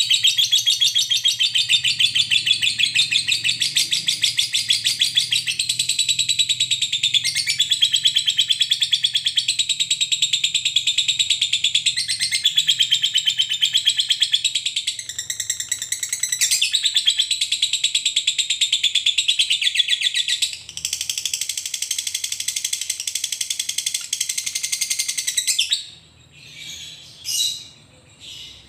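Fischer's lovebird in long-duration chattering song (ngekek): a fast, continuous high chatter kept up for about 26 seconds with only brief breaks. It stops near the end and gives way to a few short chirps.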